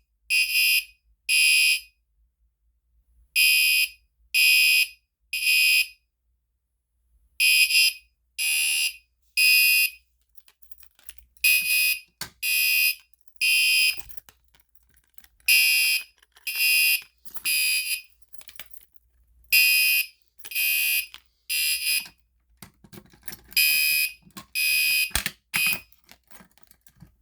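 Gentex GEC3-12WR fire alarm horn sounding the temporal-3 evacuation pattern, set off by a manual pull station: groups of three high-pitched beeps of about half a second each, with a pause of about a second and a half between groups, repeating. Tape placed inside the horn partly damps it.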